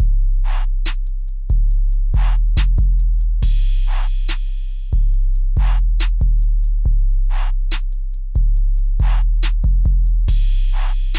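Hip-hop beat from a drum machine: a deep bass line changing note every second or so under fast hi-hat ticks and a snare or clap hit about every second and a half, with a cymbal crash about three and a half seconds in and again near the end.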